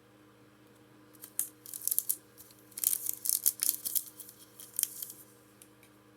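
Pokémon trading cards being handled: bursts of crisp, sharp rustling and clicking that start about a second in and die away near the end.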